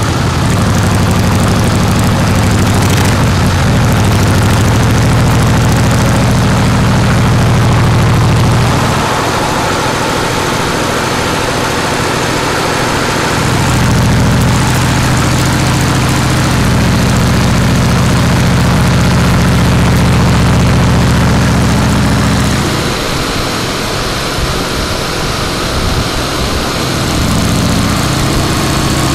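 Harley-Davidson Breakout's V-twin engine running at road speed through a Jekill & Hyde valve exhaust with the valve fully open, heard close to the mufflers with wind noise over it. The deep exhaust note eases off about nine seconds in and again a little past twenty seconds, then comes back each time.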